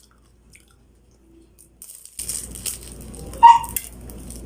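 Close-up crunching of a bite into a crisp, fried turon wrapper: loud crackly crunching starts about two seconds in and keeps going. A brief high pitched sound cuts in about a second later and is the loudest moment.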